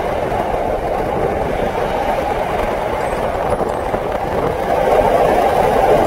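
Steady running noise heard from inside a moving vehicle travelling at speed, a rumble and rush that grows a little louder about five seconds in.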